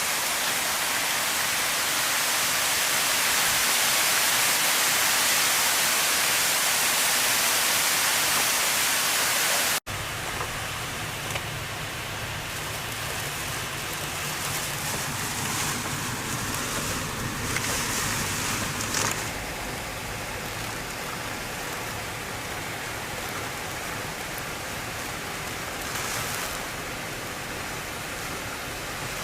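Hurricane wind and heavy rain as a steady, loud hiss; about ten seconds in it cuts abruptly to a quieter wash of rain and wind with a low rumble underneath.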